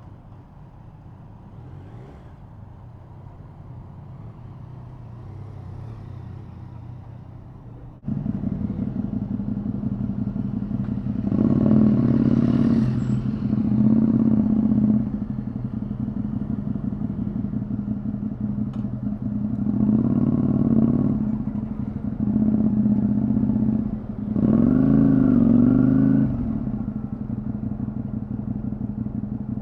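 Honda VTR250 V-twin engine with a Moriwaki full exhaust system, idling with a steady low note and revved in four short throttle blips. The engine note comes in suddenly about a quarter of the way in, after a quieter low rumble.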